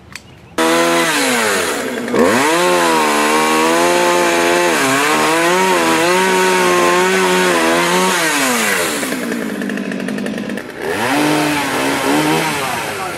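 Gasoline chainsaw revving hard, its pitch rising and falling as it cuts into a fallen tree. It starts abruptly about half a second in, dips briefly, drops to a low idle for about two seconds near the end, then revs up again.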